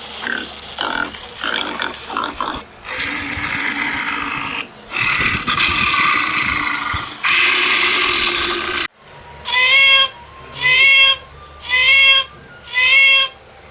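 Pig sound effect played over a speaker: short grunts, then long squeals that cut off abruptly about nine seconds in. It is followed by four evenly spaced, identical high-pitched calls.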